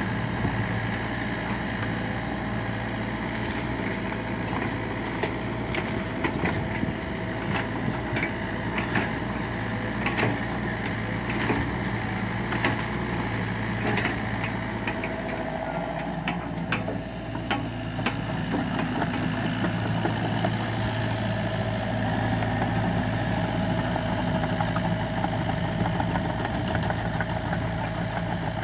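LiuGong mini excavator's diesel engine running steadily, with scattered sharp knocks and clanks over the first half; the engine note shifts about halfway through, then runs evenly.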